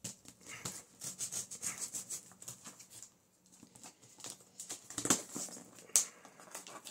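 Kitchen scissors cutting packing tape along the edge of a corrugated cardboard box: a run of scraping and rustling, then two sharp clicks near the end.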